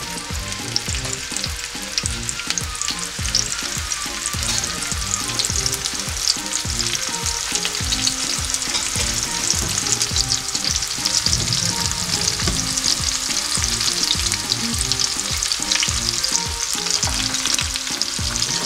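Sliced red onion frying in about half a cup of hot oil in a nonstick frying pan for a baghar (tempering), with a steady sizzling crackle. A spatula stirs it, giving short low knocks all through.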